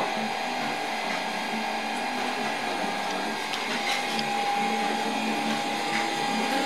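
A steady whirring hum with a constant tone, broken by a few faint clicks.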